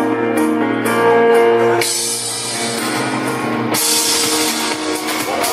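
Loud music with steady held notes, rock-like with guitar and drums.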